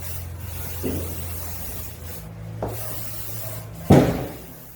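Aerosol hair fixative spray hissing in two bursts, with small clicks and a louder knock about four seconds in.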